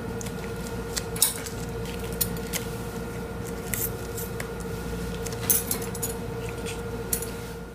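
Surgical scissors snipping and self-adherent bandage wrap being handled, heard as scattered small clicks and crinkles over a steady hum.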